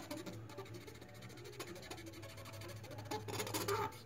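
Cotton swab rubbing quickly back and forth over acetone-dampened printed paper laid on sterling silver, pressing the toner image onto the metal. The faint scratchy rubbing eases off in the middle and grows louder near the end, over a low steady hum.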